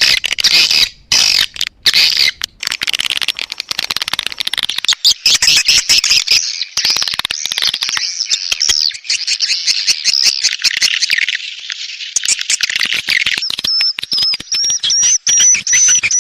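Recorded swiftlet lure-call sound (edible-nest swiftlet calls): dense, rapid chirping and clicking twitter, with a high, repeating whistle-like note joining about three-quarters of the way through. This is the kind of call track played to draw swiftlets into a bird house.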